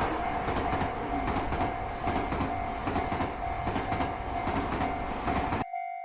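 Train passing a railroad crossing, wheels clattering, while the crossing's warning bell keeps clanging about twice a second. The train noise cuts off suddenly near the end, leaving the bell ringing alone.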